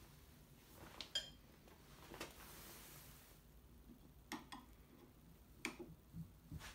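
Faint metallic clicks and light taps as a chisel is set against a steel combination square on a Douglas fir board. There are about half a dozen scattered clicks, and the first one, about a second in, rings briefly.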